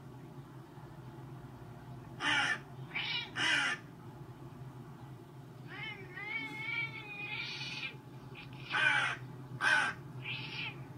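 Crow cawing, played back from a video on a computer: three harsh caws in quick succession, a longer wavering call, then three more caws near the end, over a steady low hum.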